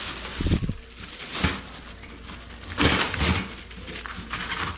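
Thin plastic wrapping crinkling and rustling as it is handled around a wire dish drainage rack. It comes in several irregular bursts, with a few light knocks.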